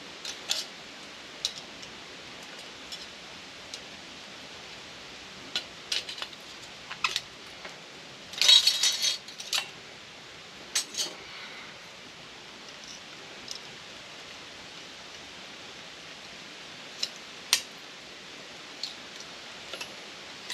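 Small screwdriver prying and popping thin aluminum pieces loose from a salvaged microwave part: scattered metallic clicks and clinks. A cluster of louder clinks comes about eight and a half seconds in, with a few more around eleven and seventeen seconds, over a steady hiss.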